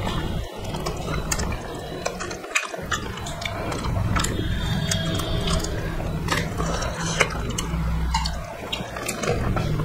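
Close-miked eating sounds of people eating rice and curry with their hands: wet chewing and lip smacks, with many small clicks throughout, over a low steady hum.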